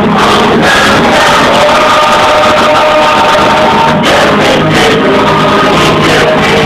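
Christian praise-and-worship music with singing, loud and steady, with long held notes over a full accompaniment.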